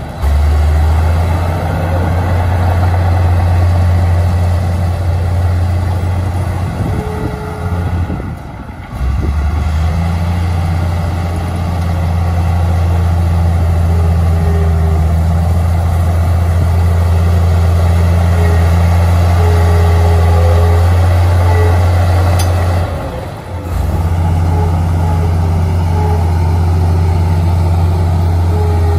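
Komatsu D53A crawler bulldozer's diesel engine running steadily under load as it pushes dirt, briefly dropping away twice.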